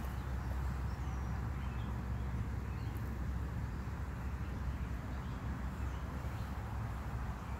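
Steady low rumble of outdoor background noise, with a few faint short high chirps.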